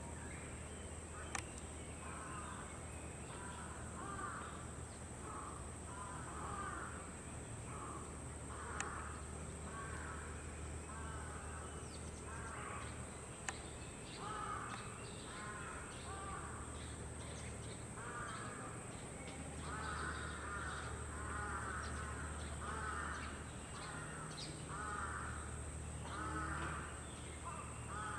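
Birds calling over and over, short calls following one another in runs, over a steady low hum, with a few sharp clicks.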